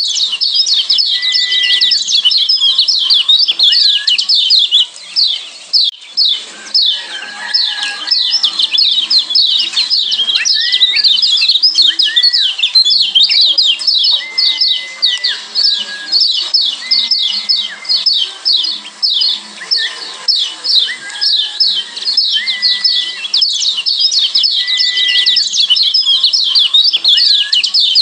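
Kecial kuning (Lombok yellow white-eye, a Zosterops) giving its rapid 'ciak' calls: an unbroken stream of quick, high, downward-sweeping chirps, several a second, with short flat whistled notes slipped in every second or two.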